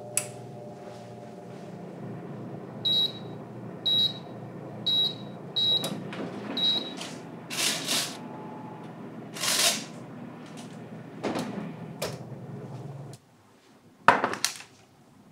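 Electric oven running with a steady hum, five short high beeps from its controls about a second apart, then the oven door opening and the metal baking tray sliding out over the rack with scrapes and rattles. The hum stops suddenly, and near the end a wooden cutting board is set down on a table with a sharp knock.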